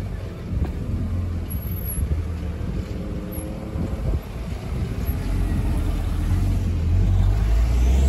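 A car engine running at low revs as an Audi TT roadster drives slowly past; the low rumble grows louder near the end.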